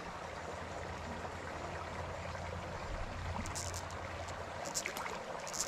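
Small creek running with a steady water hiss, with a few brief high-pitched ticks in the second half.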